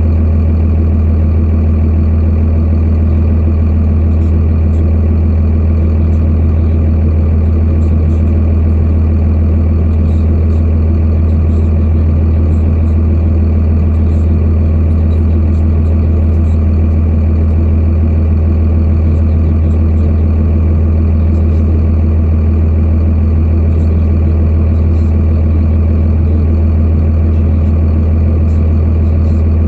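Farm truck's engine idling steadily, a deep even hum that does not change.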